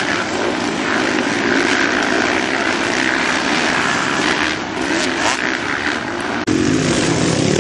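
Engines of several motocross dirt bikes running together on the track, a steady loud drone. The sound changes suddenly near the end.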